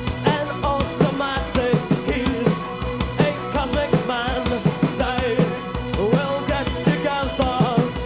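Live new wave rock band playing: the drum kit keeps a steady beat under the band, and a male lead singer's voice carries over it.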